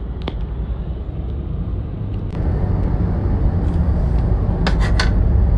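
Steady road noise of a moving car heard from inside the cabin: a continuous low rumble from engine and tyres, with a few brief sharp sounds near the end.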